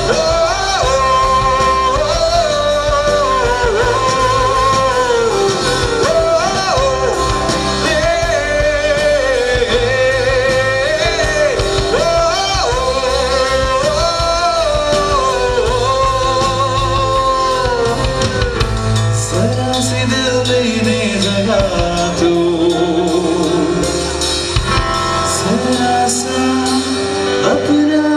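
A live band playing a song: sung lead vocal over acoustic guitar, electric bass, keyboard and drums.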